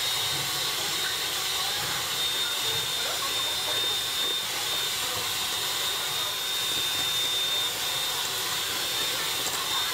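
Electric hand mixer running steadily, its beaters whipping egg whites into meringue in a stainless steel bowl, with a constant high motor whine over the whirring.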